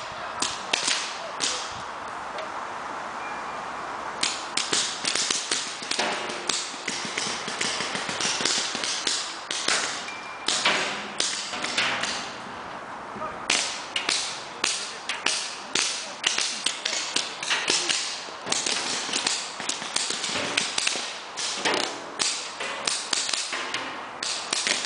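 Paintball markers firing in irregular runs of sharp shots, several players at once, with short lulls about two seconds in and again about halfway through.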